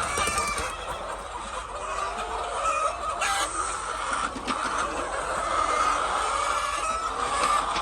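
A flock of laying hens clucking continuously, many calls overlapping, with a couple of sharp knocks in the middle.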